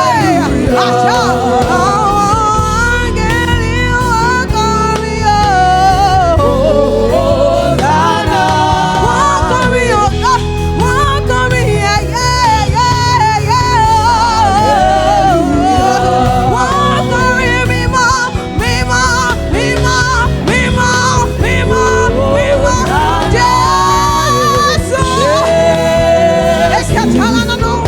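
Gospel praise-and-worship music: a sung melody over a full band with a strong bass, loud and continuous.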